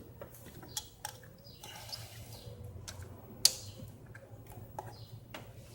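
Scattered sharp clicks and taps of ignition coils and their bolts being handled and fitted onto an engine, with one loud click about three and a half seconds in.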